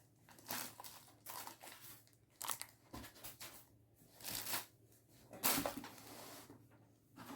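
Packaging being handled: irregular crinkling and rustling of wrapping and cardboard, in separate bursts, the loudest about five and a half seconds in.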